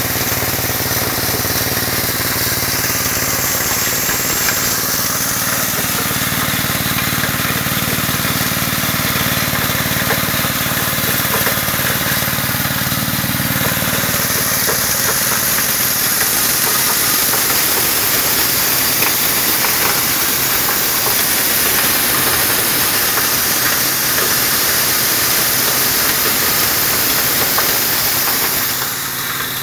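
Small stationary gasoline engine running steadily at a loud, even level, driving a maize grinder. About halfway through, the low hum fades under a broader rushing noise.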